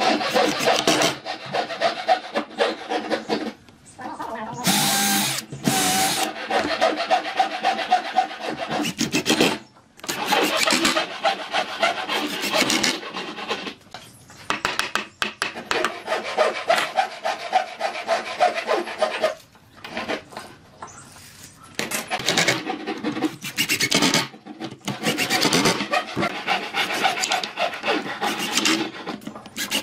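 A tool rasping and scraping against wood in rapid strokes, in spells of a few seconds broken by short pauses.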